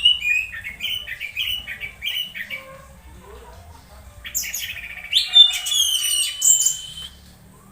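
Orange-headed thrush calling: a run of short, falling chirps, then after a brief lull a louder burst of quick, high, varied notes over a held whistle, lasting about three seconds.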